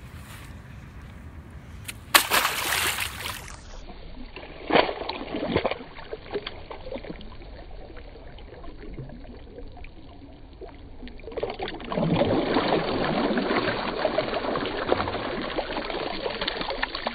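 Loose sand pouring over a Kel-Tec Sub-2000 carbine, a steady rushing trickle through the last third. Earlier there is a loud rush of about a second and a half near the start and a single sharp knock shortly after.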